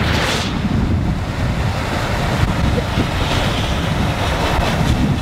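Wind buffeting the microphone over the steady low rumble of a moving vehicle, with a brief gusty whoosh right at the start.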